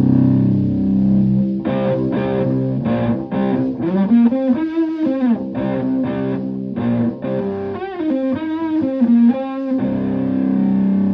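Stratocaster electric guitar played through an EarthQuaker Devices Hoof fuzz pedal into a Fender Twin Reverb-style amp. A held chord rings out, then a lead phrase of picked notes with string bends runs through the middle, and a sustained chord rings again near the end.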